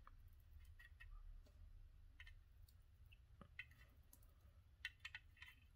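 Near silence with faint scattered ticks and crackles as rosin-core solder is melted onto through-hole PCB joints with a soldering iron, a few coming close together near the end.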